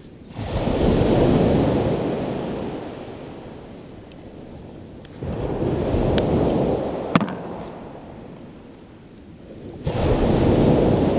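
Waves breaking on a shingle beach, three surges about five seconds apart, each coming in suddenly and then fading as the water draws back. A single sharp click about seven seconds in.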